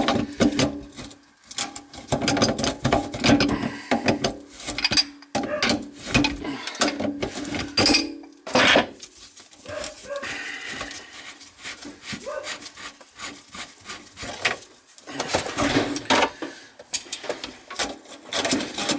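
Pipe wrench and pliers scraping and grating on a badly rusted kitchen sink basket strainer and its drain slip nut as they are worked loose, with irregular rasping and clicking.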